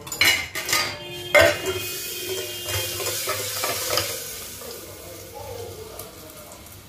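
A few metal clanks of a steel plate and tadka pan, then hot tempering oil with cumin seeds sizzling as it hits yogurt raita under the covering plate; the hiss swells and slowly fades.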